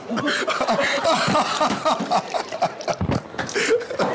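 Several people laughing and chattering over one another, with no single clear voice.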